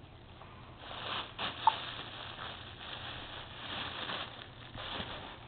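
Clear cellophane gift wrap crinkling and rustling as a baby grabs and pushes a wrapped gift bucket across carpet, starting about a second in, with a brief squeak about a second and a half in.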